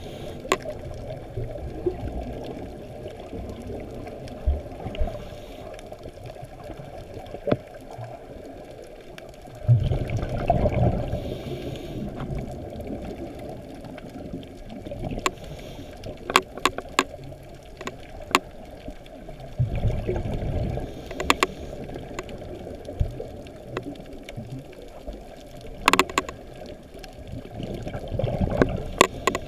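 Scuba diver's exhaled breath bubbling out of the regulator underwater, in rumbling bursts about every eight to ten seconds, with scattered sharp clicks in between.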